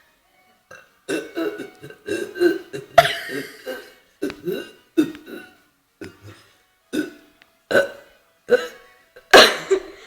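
A girl burping over and over: a quick run of burps, then single burps coming about once a second, the loudest near the end.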